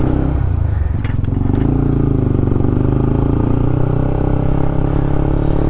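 Honda CB150X's single-cylinder engine running as the motorcycle is ridden, its note drifting up and down a little. A few short clicks sound about a second in.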